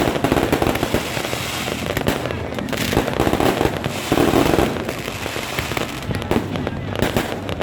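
Fireworks going off in a rapid, dense crackle of many sharp pops, with louder spells around three and four seconds in.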